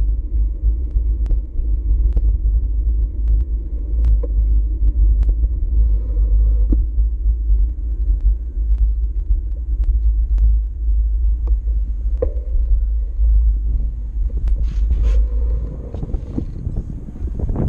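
Steady low rumble of wind buffeting and road vibration on a GoPro Hero4 Session action camera carried on a moving bicycle, with scattered sharp clicks and rattles as the bike goes over bumps.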